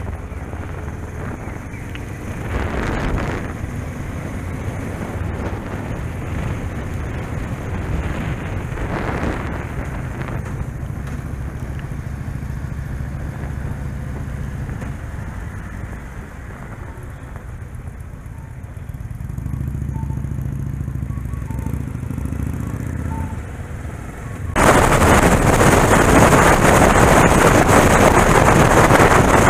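Onboard sound of a motorcycle riding: the engine running with road noise, a couple of swells in level and the engine climbing in pitch as it accelerates about twenty seconds in. Near the end the sound jumps abruptly to loud, steady wind buffeting on the microphone at speed.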